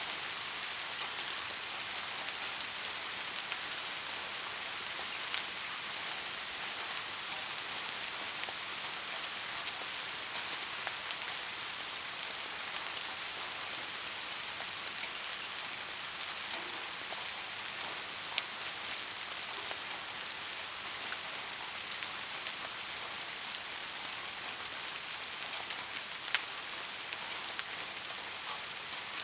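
Steady rain falling on a surface: an even hiss with scattered sharper drop ticks now and then.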